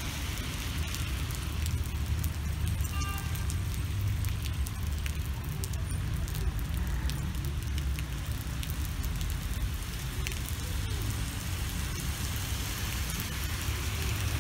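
Steady rain on a paved street, drops pattering with many small clicks, over a low rumble of car traffic on the wet road. A brief high-pitched tone sounds about three seconds in.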